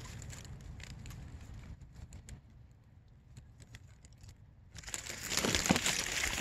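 Bush leaves rustling and crackling as they brush against the microphone, with scattered small clicks. The rustling turns much louder about five seconds in.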